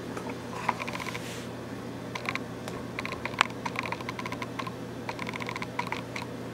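Clusters of quick, light clicks and taps over a steady low hum.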